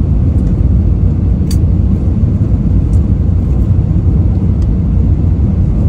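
Jet airliner cabin noise heard from a window seat: a steady, low-pitched rush of engine and airflow during the descent toward landing.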